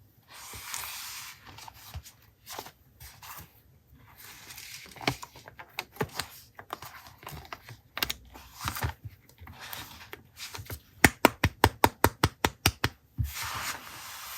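Paper and journaling materials being handled: rustling and sliding of paper with scattered light clicks, then a quick run of about a dozen sharp clicks, around six a second, near the end.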